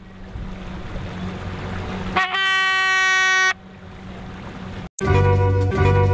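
A hand-held horn blown once from the bow of a river boat, a steady held note of just over a second, sounded to call waiting passengers aboard. It sounds over steady background noise. Plucked-string music starts near the end.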